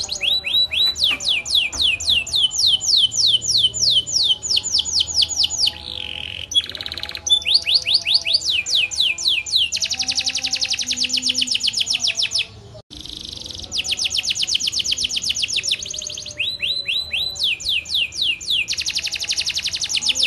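Domestic canary singing a long, continuous song of fast trills, each a rapid run of repeated down-sweeping notes, switching from one trill to another every couple of seconds. The song breaks off briefly about thirteen seconds in.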